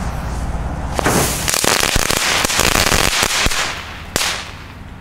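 Pyrotrade Feuerball crackling ground firework going off: a steady hiss, then about a second in a dense crackling of many sharp pops lasting some two and a half seconds, very strong, almost a double crackling, before it thins out, with one last sharp crack near the end.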